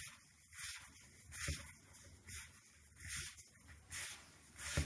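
Gloved hands rubbing and squeezing damp bath bomb powder in a plastic bowl: a series of soft scrunching strokes, a little more than one a second.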